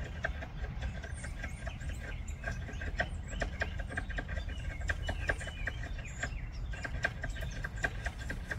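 Squirrel calling in a rapid run of short, sharp chirps, several a second, with a brief pause about two-thirds of the way through, over a steady low rumble.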